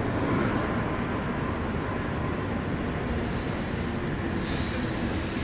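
Shinkansen bullet train pulling in alongside the platform: a steady rumble and rush of the cars rolling past, with a brighter hiss joining about four seconds in.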